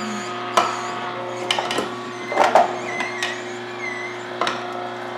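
Omega horizontal masticating juicer running with a steady motor hum. Pieces of peeled orange, grapefruit and lemon are fed into the chute and pressed down with the plunger, giving several sharp knocks and crunches, the loudest about two and a half seconds in.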